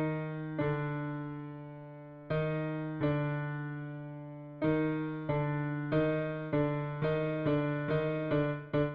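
Piano playing slowly: struck notes over a repeated low note, each ringing and fading, the strikes spaced far apart at first and coming faster and closer together toward the end.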